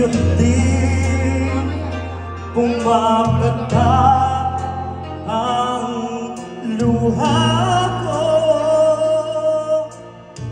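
A man singing a slow song into a microphone over an amplified backing track, with long held notes above a bass line that changes chord every few seconds.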